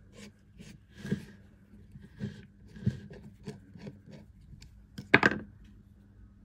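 A screwdriver turns a loose screw out of a small steel Starrett No. 657 magnetic dial-gauge stand, making a run of short scrapes and clicks about twice a second. Just after five seconds in there is one louder clatter as the screwdriver is put down on the wooden bench.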